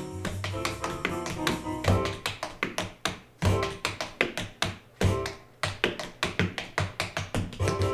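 Tap shoes striking a portable tap board in quick, rhythmic runs of sharp clicks. Band music plays under the first two seconds, then the taps carry on nearly alone, broken by a few short band hits, and everything stops together at the end.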